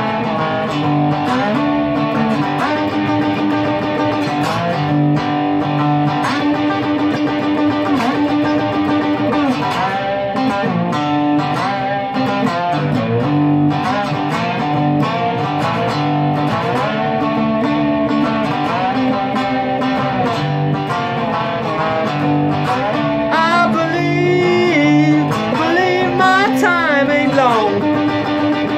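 Cigar box guitar playing a blues instrumental break: a repeating riff over recurring low notes, with notes sliding up and down in pitch near the end.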